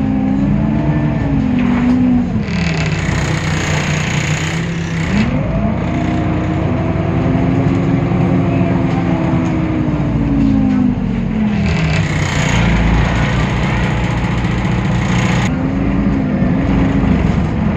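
Temsa Avenue LF city bus's DAF PR 228 diesel engine, driving through a ZF automatic gearbox. Its note rises, holds and falls as the bus accelerates and eases off. Two stretches of high rushing hiss come during the slower spells, about three seconds in and again after twelve seconds.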